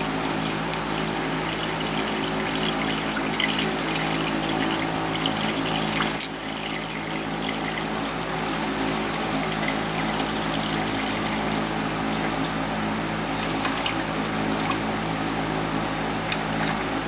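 Pre-mixed coolant being poured from a jug into the radiator filler neck, a steady pouring and gurgling with a short lull about six seconds in, as the opened cooling system is filled as full as it will go.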